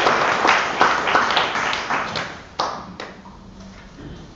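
A small audience clapping, the applause dying away about two and a half seconds in with a last few single claps.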